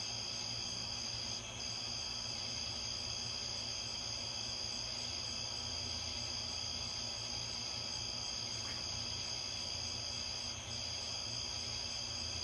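Crickets trilling in a steady, high-pitched night chorus, with a low hum underneath.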